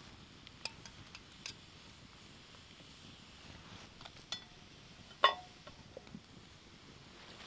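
A few scattered light clicks and metal clinks of a utensil against a dish. The loudest is a single ringing clink about five seconds in.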